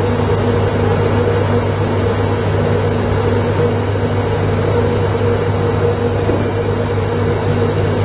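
A steady, loud, low mechanical hum made of a few constant tones, like a motor or compressor running.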